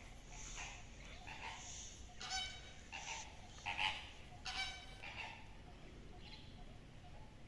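Birds calling: several short calls, the loudest clustered in the middle few seconds, over faint steady background noise.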